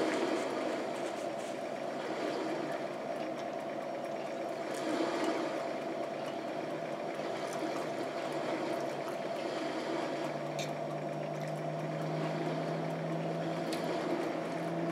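A steady mechanical hum fills the background, with a low tone that grows stronger about ten seconds in. A few faint clicks sound over it.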